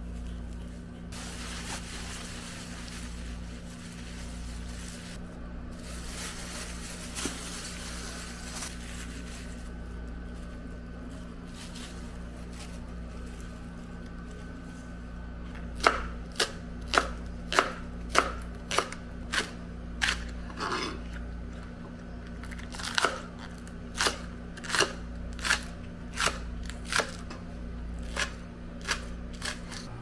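Plastic packaging crinkling and rustling as it is handled. Then a chef's knife chops through green onions onto a cutting board, in a steady run of sharp chops about three every two seconds.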